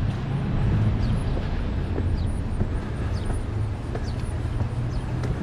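Steady low rumble of road traffic, with a continuous hum underneath and a few faint, short high chirps.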